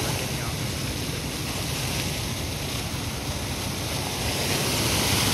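Steady rushing of a large jet of water spraying from a burst underground water pipe, with spray falling back onto the grass. It grows louder about four and a half seconds in.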